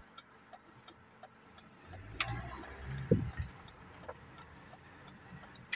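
Faint, regular mechanical ticking, about three ticks a second, with a knock about two seconds in and a brief low rumble and thump around the middle.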